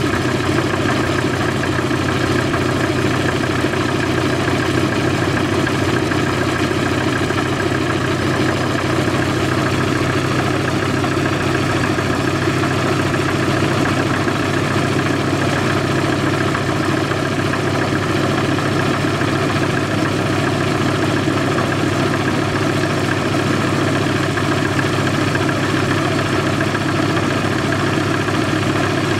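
A C-47's Pratt & Whitney R-1830 fourteen-cylinder radial engine idling steadily without its cowling, on a warm-up run after its first start of the season.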